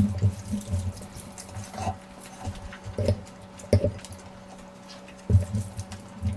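Close-miked wet eating sounds: irregular squelching, smacking chews of saucy curry and rice, over a faint steady hum.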